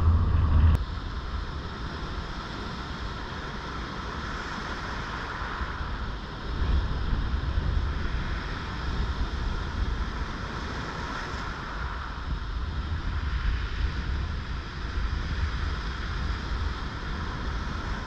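Heavy surf from a rough sea breaking and washing around rocks: a continuous rush of water with wind rumbling on the microphone. A louder wash of surf over pebbles cuts off under a second in, and the surf grows louder again about six and a half seconds in.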